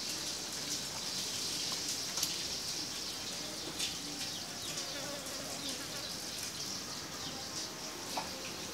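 Steady high-pitched insect chorus buzzing and shrilling, with a few faint short chirps scattered through it.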